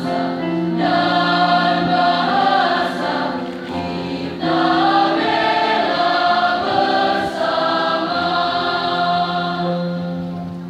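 Mixed school choir of boys and girls singing together in long held notes. A phrase breaks about four seconds in, and the singing tapers off just before the end.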